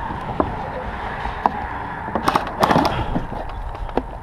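Airsoft guns firing: a few single sharp shots and two short rapid bursts about halfway through, over a steady low rumble.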